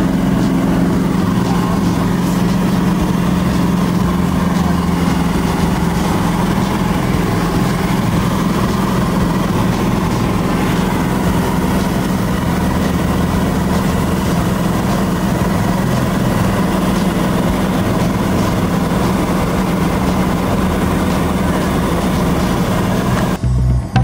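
Steady drone of a light single-engine aircraft's piston engine and propeller, heard from inside the cabin at takeoff and climb power. Music cuts in near the end.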